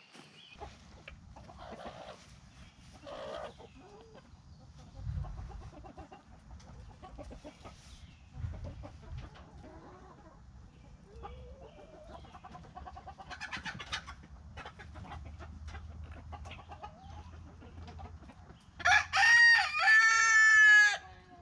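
A rooster crowing loudly near the end, one call of about two seconds that falls in pitch in several steps. Before it come faint clucking calls and light knocks.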